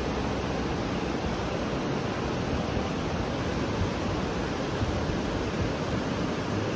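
Steady rush of fast river water running over rocks in shallow rapids.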